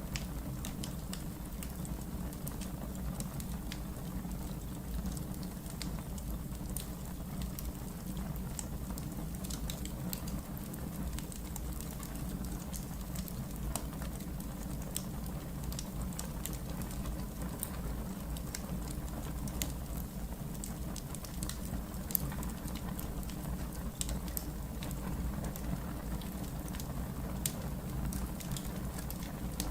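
Wood fire burning in a fireplace: irregular small crackles and pops over a steady low rumble, with one sharper pop about two-thirds of the way through.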